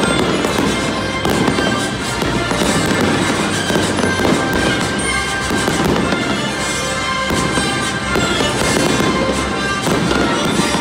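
Aerial fireworks shells bursting overhead again and again, with music playing loudly alongside.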